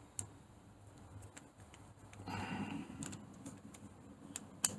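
Small clicks and taps from a screwdriver and a plastic plug being handled while the cable clamp screw is tightened, with a brief rustle a little past halfway.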